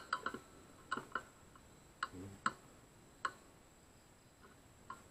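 A series of light, sharp clicks at uneven intervals, clustered in the first few seconds and sparser near the end, over a faint steady high-pitched whine.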